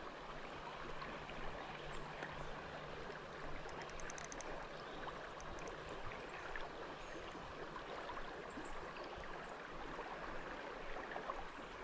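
Creek water flowing steadily, an even rushing sound, with a faint high thin tone wavering above it.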